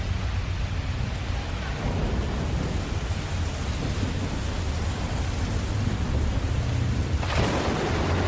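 Steady rain with low, rumbling thunder underneath. About seven seconds in, the hiss suddenly gets louder and brighter.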